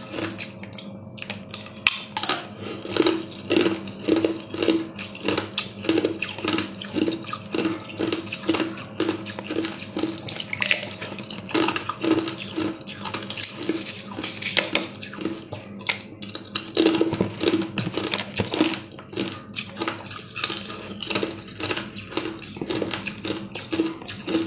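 A thin plastic cup crackling and crinkling as fingers peel it off a block of frozen blue ice, with many small irregular clicks and scrapes of plastic against ice.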